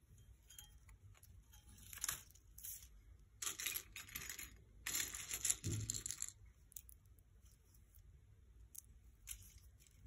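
Hands handling thin craft wire on a table covered in brown kraft paper: a few short, scratchy rustles of wire and paper, the longest in the middle, with a soft knock near its end.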